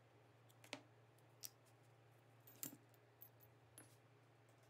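A few faint metal clicks as small hardware is worked by hand: a screwdriver on a screw and steel washer. There are about four scattered clicks over a low steady hum.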